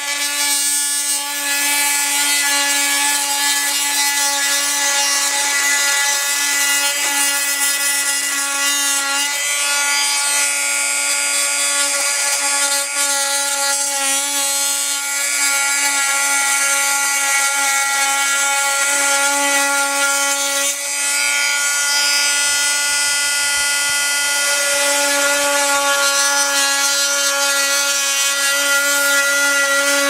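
Oscillating multi-tool with a plunge-cut blade running steadily as it cuts into model railroad layout scenery: a constant buzz that holds one pitch throughout.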